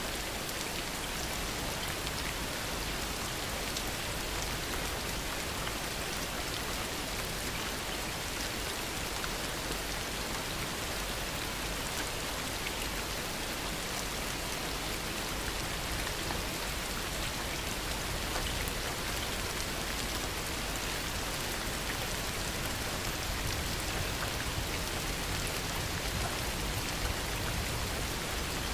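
Heavy, steady rain falling, a dense even hiss with fine patter of individual drops and no thunder.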